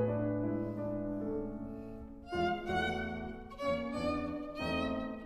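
Background instrumental music: a slow melody of held notes, growing brighter about two seconds in.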